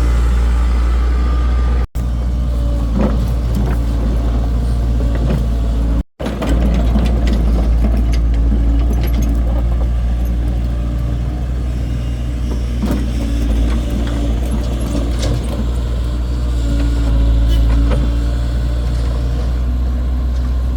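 Engine running steadily with a low drone, with scattered knocks and clanks over it. The sound cuts out briefly twice, about two and six seconds in.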